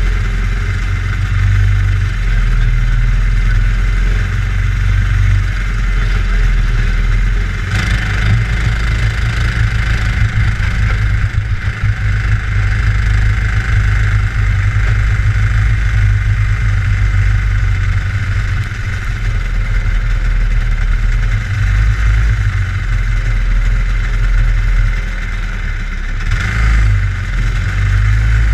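Small single-seat dirt racer's engine running steadily, heard from the driver's seat.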